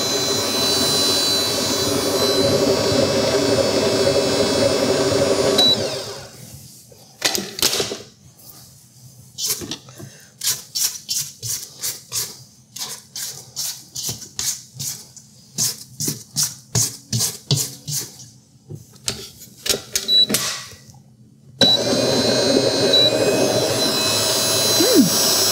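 Vevor 7.4-quart stand mixer motor running steadily while beating eggs into peanut butter cookie dough, then stopping about six seconds in. A long run of short sharp taps follows, about two a second, before the mixer starts running again near the end.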